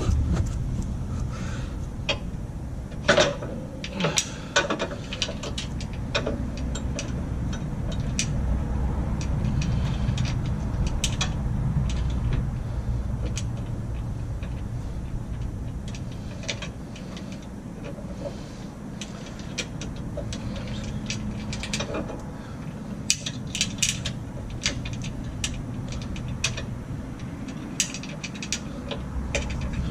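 Scattered metallic clicks and rattles of hand tools and bolts being worked on a steel bumper mount, over a steady low background rumble.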